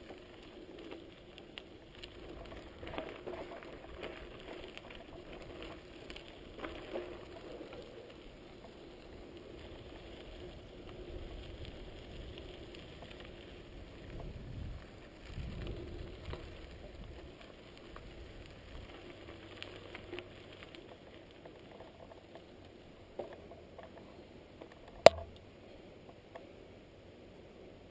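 Bicycle rolling over a gravel road: tyres on loose gravel and the bike rattling in an irregular patter of small clicks and knocks. One sharp, loud click comes near the end.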